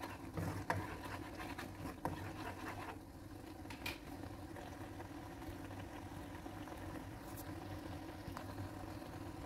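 A nylon spatula scrapes and stirs thick spice paste in a non-stick wok, giving irregular scratches and light knocks for the first three seconds or so. After that only a steady low hum and soft hiss remain while the paste cooks untouched.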